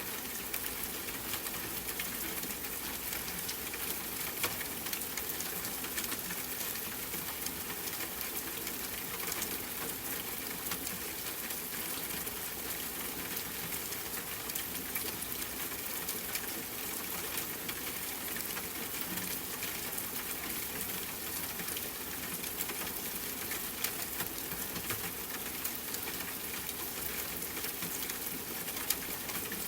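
Steady rain falling, an even hiss of patter with scattered sharper ticks of single drops.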